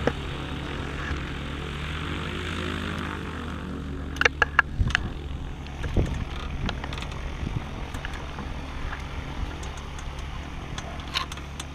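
Propeller engine of an ultralight tow plane running steadily at the airfield. A cluster of sharp clicks comes about four seconds in, with a few more scattered clicks later.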